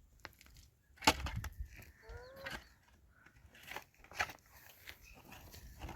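Four sharp knocks, roughly one every second and a half, with a short warbling call about two seconds in.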